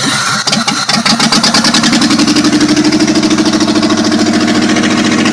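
Car engine running at a steady idle with an even, fast pulsing beat, after an unsettled first second or so.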